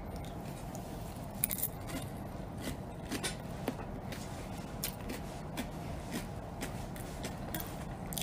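Person eating: chewing, with scattered short clicks and scrapes of a plastic fork against takeout containers, over a steady low background hum.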